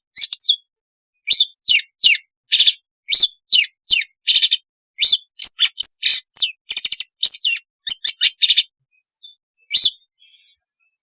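Long-tailed shrike (cendet) singing a rapid string of short, loud chattering notes. There is a brief pause after the first few notes and a single last note near the end.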